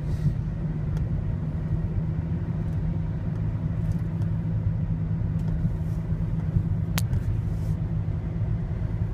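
Steady low rumble of a car's road and engine noise, heard from inside the cabin while driving. One sharp click stands out about seven seconds in.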